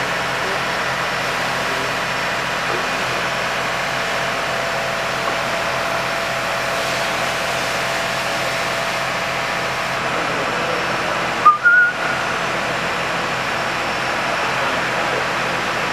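Steady rushing background noise. About twelve seconds in it breaks off briefly and a short rising high chirp sounds.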